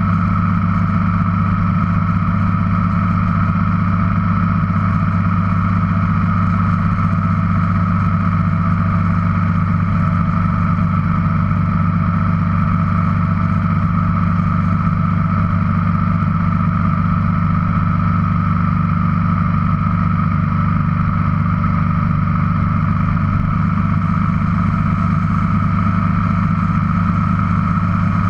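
Motorcycle engine running at a steady cruising speed with wind and road noise, heard from on the bike, its pitch holding level throughout.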